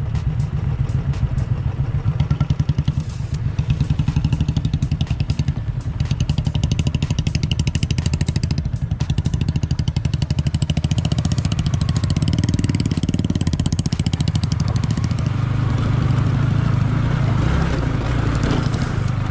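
Single-cylinder motorcycle engine running under load, its exhaust pulses coming fast and even; it becomes steadier and fuller about fifteen seconds in.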